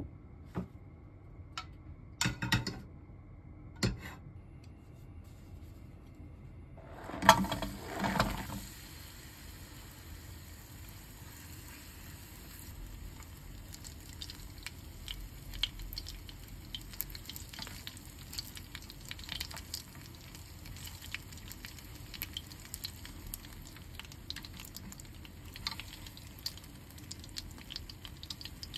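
Cubes of mochi frying in oil in a small rectangular frying pan: a steady sizzle with scattered crackles and pops, starting with a loud burst about seven seconds in. A few sharp clicks and knocks of handling come before it.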